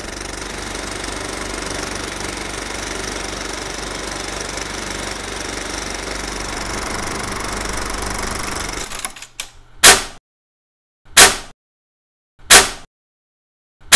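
A film projector running with a steady mechanical clatter, which cuts off suddenly about nine seconds in. Four loud, short hits follow, evenly spaced a little over a second apart.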